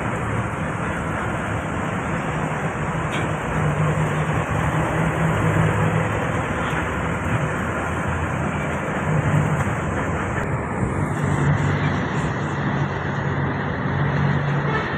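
Moving bus heard from inside its cabin: the engine's low drone and road noise, the drone rising and falling slightly with engine speed.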